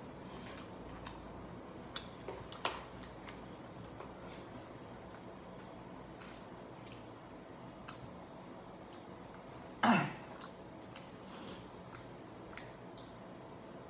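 One short throat-clearing cough about ten seconds in, falling in pitch, over quiet room tone with faint scattered taps and clicks of eating with chopsticks.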